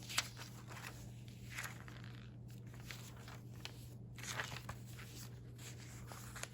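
Paper rustling and crinkling as pages of a recipe binder full of old newspaper clippings are handled and turned, in short bursts, with one sharp click just after the start. A steady low hum runs underneath.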